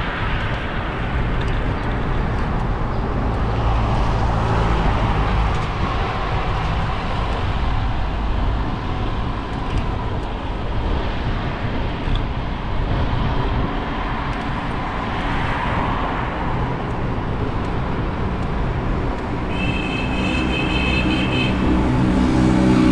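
Motor vehicle driving along a street: steady engine hum with tyre and wind noise. Near the end a higher steady whine and a louder engine note come in.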